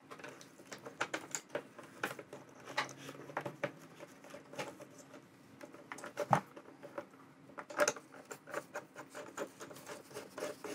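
Small plastic clicks, scrapes and rattles as a Polaroid ProFlash bracket is fitted under a Polaroid ProPack camera and its knurled thumbscrew is turned by hand. Two sharper clicks stand out in the second half.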